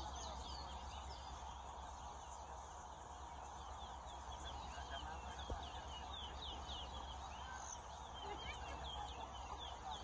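Caged towa-towa seed finches singing in a whistling contest: rapid runs of short, high chirps and whistles, thickest in the first half and again near the end, over a low background murmur.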